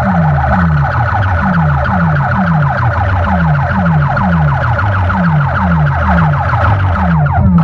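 DJ sound-system speaker boxes playing competition sound at high volume. A deep bass note slides downward nearly twice a second under a fast, warbling, siren-like electronic tone. Near the end the high tone dives down and cuts out for a moment while the bass keeps going.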